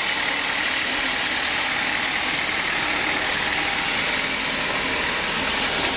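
Sawmill machinery running with a steady, unbroken mechanical noise.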